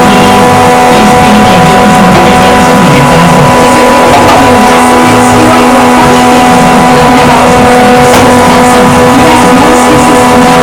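A woodworking power machine running steadily at full speed, a loud, even hum with a fixed pitch over a dense rushing noise, with no change in speed.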